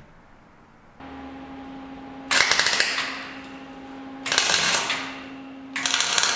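A workshop power tool gives three short bursts of rapid, crackling rattle, each lasting under a second, over a steady electrical hum that starts about a second in.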